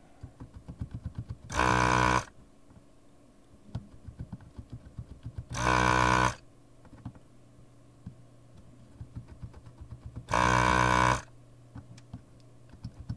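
Electric desoldering gun's built-in vacuum pump switching on three times, each time a steady pitched hum lasting under a second, as it sucks molten solder from a chip socket's pins. Faint irregular ticking sounds between the bursts.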